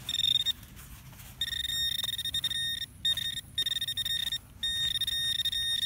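Handheld metal-detector pinpointer held in a plug of soil, sounding a steady high alarm tone that switches on and off in about six stretches, from half a second to a second and a half long, as its tip nears the metal target buried in the plug.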